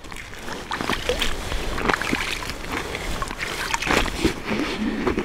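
Hand stirring and kneading damp fishing groundbait in a soft bucket: a continuous run of wet squishing and gritty crackling, with many small irregular clicks.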